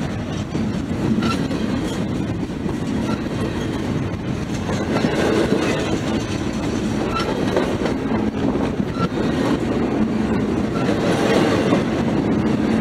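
Double-stack intermodal container train's well cars rolling past at close range: steel wheels running steadily over the rails.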